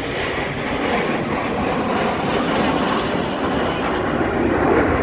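Aircraft engine noise from a plane flying past: a steady rushing sound that grows a little louder near the end.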